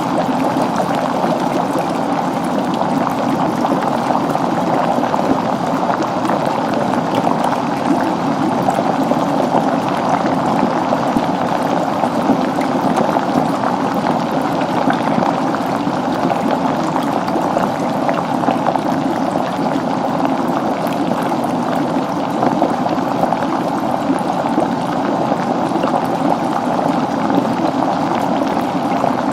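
Geyser water boiling and splashing: a steady churning of water that keeps up without a break.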